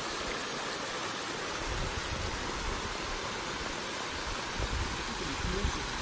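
Hot-spring waterfall: water running down a broad rock face in many small cascades, a steady rushing splash, with a low rumble joining in about two seconds in.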